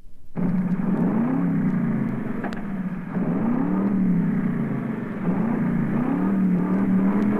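Engine revving over and over, its pitch swooping up and falling back about once a second, over a rough running noise.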